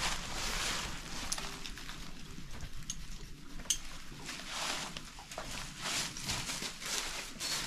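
Irregular rustling and shuffling in dry corn-husk bedding around a draft horse, with a few light clicks as the lead rope and tack are handled.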